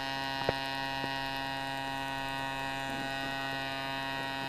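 Flexrotor drone's engine and propeller running at a steady speed as it hovers, an even hum of several steady tones that does not change, with a faint click about half a second in.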